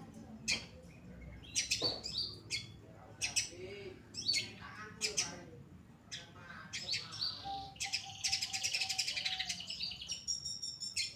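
Long-tailed shrike (cendet) in full song: a varied run of short, sharp chirps and calls, then a rapid chattering trill near the end.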